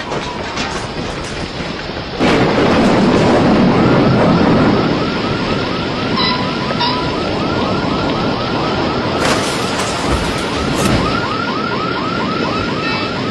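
Loud rushing roar of strong wind, rising sharply about two seconds in. From about five seconds in, a fast warbling alarm-like tone joins it, repeating about four times a second.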